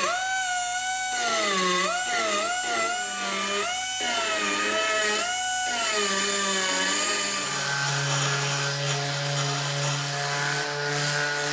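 Grinder shaping the welds on a steel pipe frame, its motor whine dipping in pitch and recovering again and again as the wheel bites into the metal. From about eight seconds in it runs at a steadier pitch.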